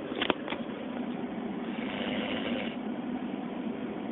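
Steady running noise of a moving train heard from inside the carriage, with two sharp clicks about half a second in.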